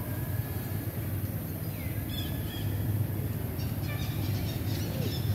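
Steady low outdoor rumble with a few faint, short high chirps and whistles.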